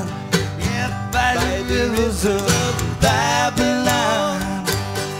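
Live recording of an acoustic string band, with guitars, mandolin and stand-up bass, playing a reggae tune with a steady strummed beat.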